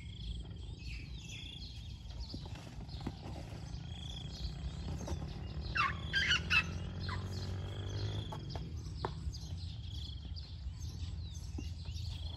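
Birds calling over a steady low rumble, with a burst of loud, sharp calls about six seconds in.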